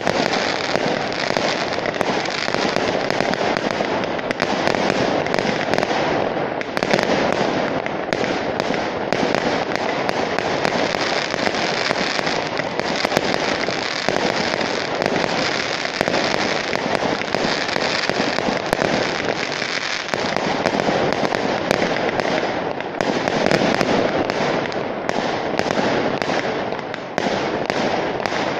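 Aerial fireworks display: a continuous barrage of shell bursts and crackling reports, one bang hard on the next with no pause.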